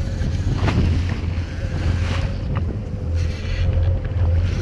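Jet ski engine running with a steady tone, water washing and slapping against the hull, and wind buffeting the microphone.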